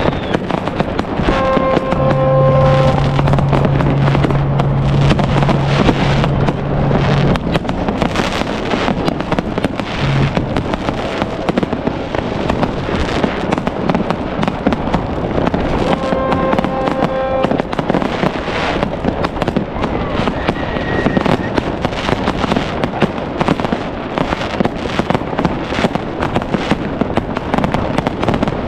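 Dense New Year's Eve fireworks: rockets, batteries and firecrackers going off all around in a continuous, rapid crackle of bangs. A long held low tone with overtones sounds for about five seconds near the start, and its upper notes return briefly about halfway through.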